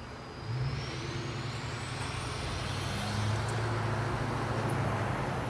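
Amtrak Northeast Regional train with an ACS-64 electric locomotive approaching: a steady low hum comes in about half a second in and slowly grows louder, with a faint high whine rising in pitch over the first few seconds.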